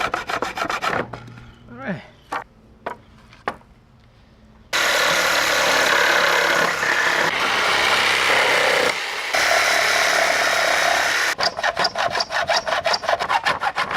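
Rhythmic saw strokes on pallet wood, a few sharp knocks, then a power tool running steadily for about seven seconds with a short break near the middle, then rapid saw strokes again near the end.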